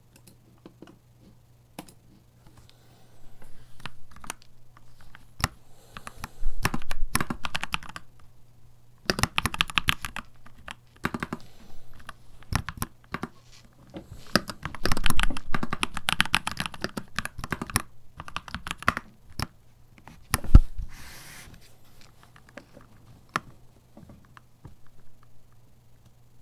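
Keychron C2 Pro 8K mechanical keyboard being typed on, in bursts of rapid keystrokes with short pauses between them. One key hit about twenty seconds in is much louder than the rest.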